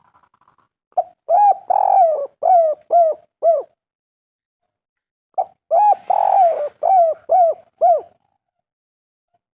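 Spotted dove (derkuku/tekukur) cooing its 'kuk 3' song twice. Each phrase is a short opening coo, a longer drawn coo, then a run of three or four short clipped coos.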